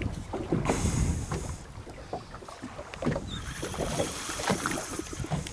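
Water slapping against the hull of a small boat on choppy sea, with wind buffeting the microphone and scattered irregular knocks.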